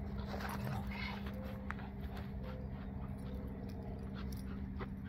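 Belgian Malinois whining softly a few times in short notes, over a steady low hum and light ticks.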